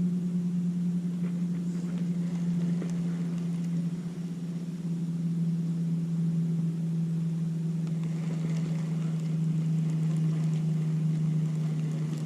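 Boat motor running with a steady low drone that dips slightly in pitch about four seconds in.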